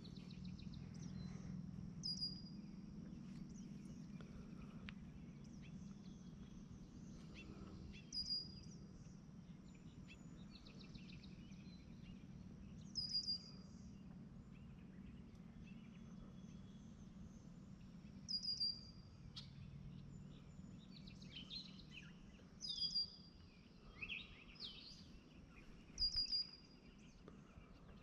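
A bird repeating a short, high, falling call about every five seconds, with a few other chirps near the end, over a faint, low, steady hum.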